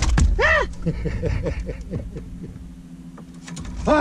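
Fishing reel being cranked as a crappie is brought up to the boat, a quick run of small ticks at several a second, over a faint steady hum. Two short rising-and-falling pitched tones sound right at the start.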